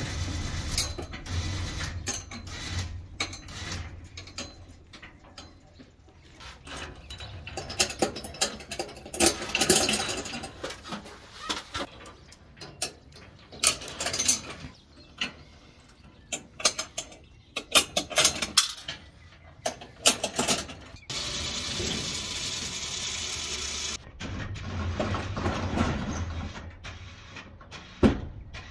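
Steel safety chains rattling and clinking, with sharp metal clanks from the hooks and the rooftop tent's mounting rails as the chains are hooked on. A low steady hum at the very start and about three seconds of even, steady noise past the middle.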